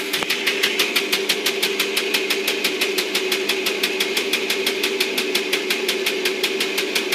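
Battery-powered Technofix 315 Gigant tin toy construction site running: a steady motor hum with a rapid, even clicking of about seven clicks a second.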